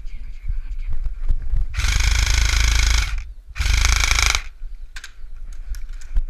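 KWA M4 airsoft electric gun firing two full-auto bursts, a longer one of about a second and a half, then a short one after a brief pause, a rapid rattle over the gearbox motor's whine. Light footsteps sound before and after.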